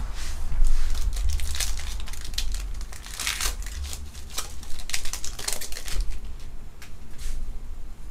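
Foil wrapper of a Topps WWE Undisputed trading-card pack being crinkled and torn open by hand: a run of irregular sharp crackles that thins out toward the end.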